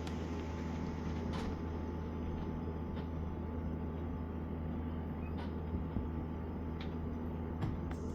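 Steady rain with a low steady rumble underneath and a few faint sharp ticks scattered through it.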